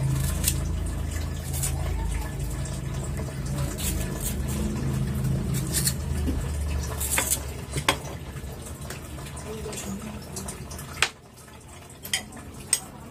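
A knife clicking and scraping against a plate while green Indian mangoes are peeled and sliced, with a few sharp knocks. A low steady hum sits under most of it and drops away about eleven seconds in.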